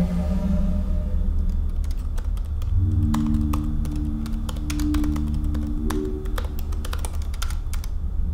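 Typing on a laptop keyboard: quick, irregular key clicks starting about a second in, over a low droning music score with held tones.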